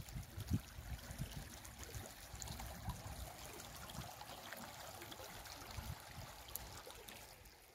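Faint steady rush of water flowing along a small open irrigation ditch, with a few soft low thumps, the strongest about half a second in.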